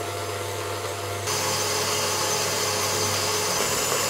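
KitchenAid Heavy Duty stand mixer running steadily, its beater whipping butter cream in the steel bowl. About a second in the whir jumps louder and higher as the mixer is switched from slow to a faster speed.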